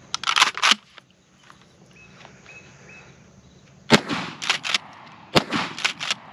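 Kel-Tec KSG 12-gauge pump-action bullpup shotgun fired twice, about four seconds in and again about a second and a half later, each shot followed by sharper, lighter clacks. A quick burst of clattering near the start.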